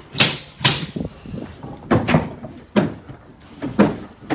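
Footsteps on a sheathed wooden subfloor: a run of irregular thumps and scuffs, several of them in quick pairs.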